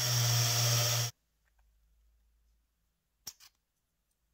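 Cordless drill with a countersink bit running in a short burst of about a second, countersinking the rivet hole in a beech-wood screwdriver handle scale. About three seconds in come two light clicks.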